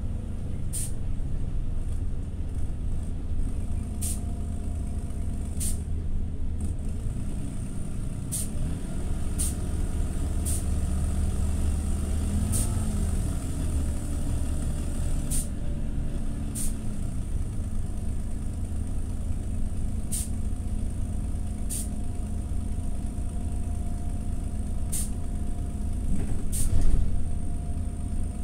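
A TCV Karat city bus's engine running under way, heard from inside the passenger cabin, with its pitch shifting briefly midway. Sharp clicks cut through at irregular gaps of one to three seconds. The uploader calls the engine sound badly broken.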